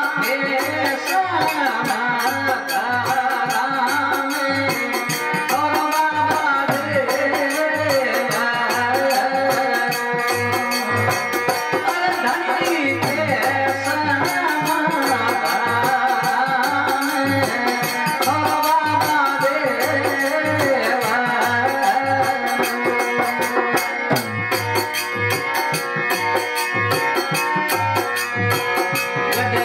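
Rajasthani devotional bhajan music: a harmonium melody over a steady dholak beat, with khartal clappers rattling.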